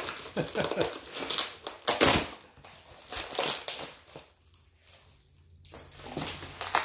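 Packaging being torn open and crumpled by hand: crackling, ripping paper and cardboard, with a loud rip about two seconds in and a short lull past the middle before the rustling resumes.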